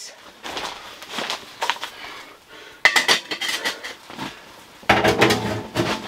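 Metal stovepipe sections on a small tent wood stove clinking and clanking as they are fitted back together. There are scattered light clinks, then a burst of clatter about three seconds in and another about five seconds in.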